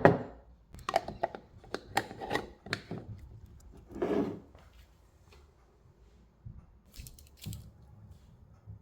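Kitchen food-prep handling sounds: a quick run of light clicks and knocks of utensils and dishes for about three seconds, a short noisy scrape about four seconds in, then a few faint taps near the end.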